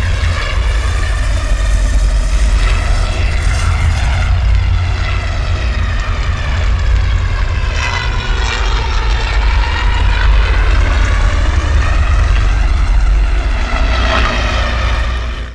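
Interior engine noise of a Star Wars Republic LIUV transport, as heard from inside the craft. A steady deep rumble sits under a layered whining hum that wavers slowly in pitch, and it cuts off right at the end.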